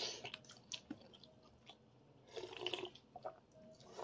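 A man chewing a mouthful of beef meatball and noodles, with a few small clicks and a short louder patch of eating noise about two and a half seconds in.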